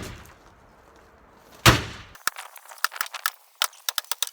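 A sledgehammer blow striking the shed, a loud single impact just under two seconds in, followed by a quick irregular scatter of small cracks and clatters as the struck panel splinters and bits of debris fall.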